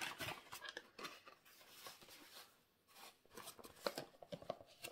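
Small cardboard box being handled and opened by hand: faint, irregular scraping and rustling of the card flaps, busiest at the start and again about three and a half seconds in.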